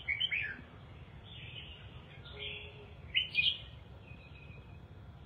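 Red-whiskered bulbul calling in short high chirps and warbles: a few notes at the start, a longer phrase about a second and a half in, and the loudest notes just after three seconds.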